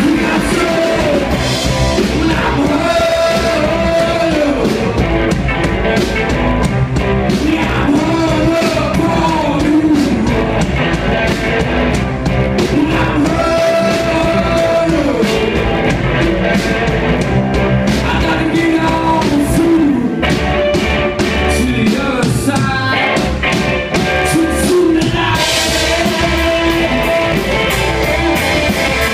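Live rock band playing loud: a singer's lead vocal over electric guitars, electric bass and a drum kit.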